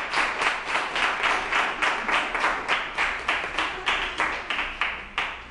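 Audience clapping in unison in a steady rhythm, about four claps a second, stopping near the end.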